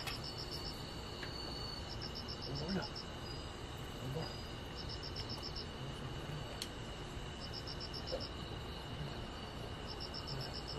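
Night insects calling: a steady high trill, with a short run of rapid chirps, about ten a second, coming back every two to three seconds.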